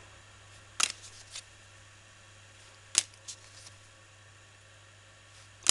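Playing cards being handled one at a time: three sharp snaps, about a second in, about three seconds in and at the end, each followed by a few fainter ticks.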